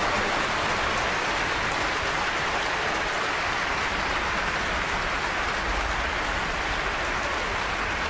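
Steady, sustained applause from a large concert-hall audience, a dense even clapping with no pauses.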